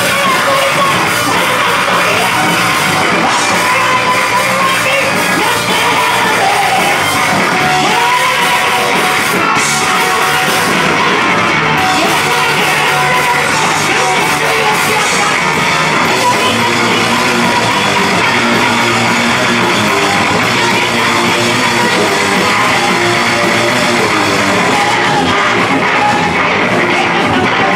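Live rock band playing loud: electric guitar, bass guitar and drum kit, with a woman singing and yelling into a microphone.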